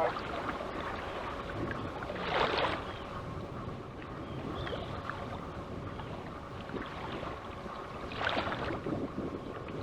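Choppy seawater lapping and splashing around a kayak, with a steady wind rumble on the microphone; two louder splashes, one about two seconds in and one near the end.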